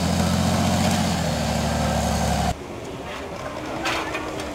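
Off-road trial 4x4's engine running loud and steady, heard close up, which cuts off abruptly about two and a half seconds in, leaving a fainter engine in the background.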